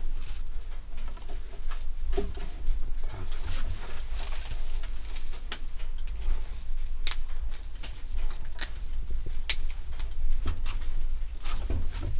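Rustling of conifer branches being handled and laid out on a wooden bench, with scattered light snaps and taps of twigs against the wood, over a steady low rumble.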